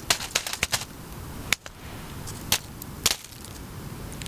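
Small objects dropped one after another onto the forest floor as home-made foley for deer droppings: a quick patter of sharp ticks in the first second, then single ticks about a second apart.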